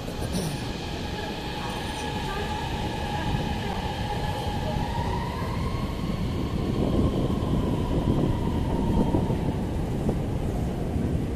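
Dalian Metro Line 1 train running, its electric traction motors whining in several steady tones over a rumble. The rumble grows louder about six seconds in.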